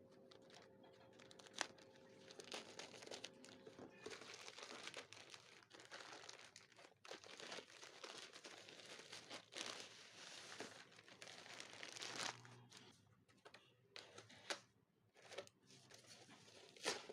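Packaging being unwrapped by hand: faint, irregular crinkling and tearing of wrapping, with a couple of sharp clicks, one near the start and one near the end.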